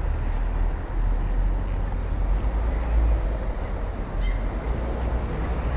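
Wind buffeting the camera microphone as a steady, fluttering low rumble over open-air city ambience, with a brief high chirp about four seconds in.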